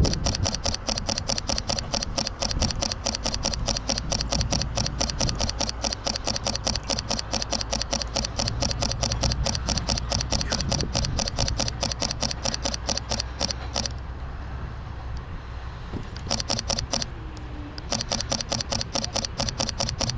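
Fujifilm X-T3 camera shutter firing in continuous bursts, many clicks a second. It stops for a couple of seconds about two-thirds through, then fires a short burst and another run near the end. A steady low rumble runs underneath.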